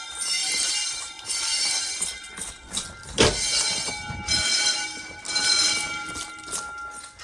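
Fire alarm bells ringing during a system test, the ringing swelling and fading about once a second. A single thump about three seconds in.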